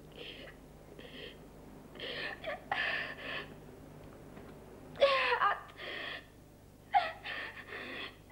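A young woman sobbing: short gasping breaths in bursts, breaking into louder crying wails about five and seven seconds in.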